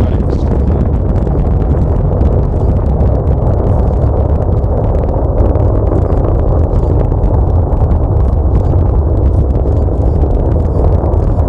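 Rocket roar from a SpaceX Falcon 9's first-stage engines during ascent, heard from about four miles away: a steady deep rumble with no sharp peaks.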